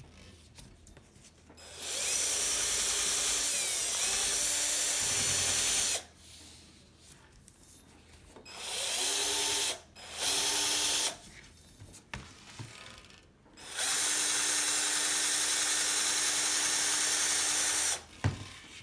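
A small handheld electric power tool, drill-like, running in four bursts with short pauses between: two runs of about four seconds, with two brief ones between them.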